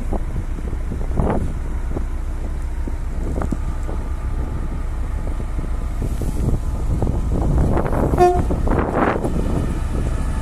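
Vossloh G2000 diesel-hydraulic locomotive approaching at the head of a coach train, its engine and wheels making a low rumble under wind noise on the microphone, with a brief horn toot about eight seconds in.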